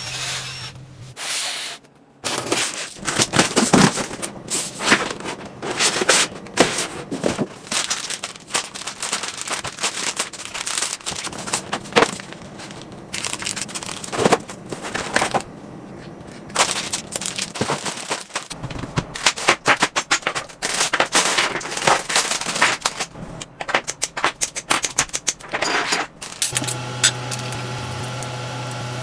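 Plastic packaging crackling and rustling, with many sharp clicks, as bagged kit parts are handled. Near the end it gives way to a steady low hum.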